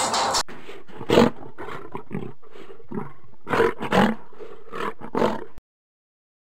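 A lion roaring: a series of about six separate roars, the loudest about a second in and near four seconds in, cutting off suddenly about five and a half seconds in. Film-style music stops abruptly just before the first roar.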